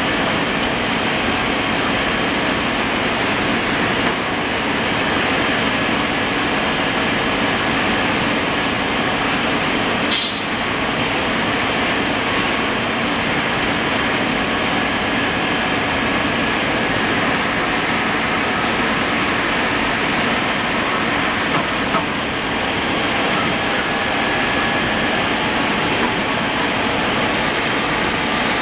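Citizen Cincom M20 Swiss-type CNC automatic lathe running, a loud steady machine noise with a faint steady whine. One sharp click about ten seconds in.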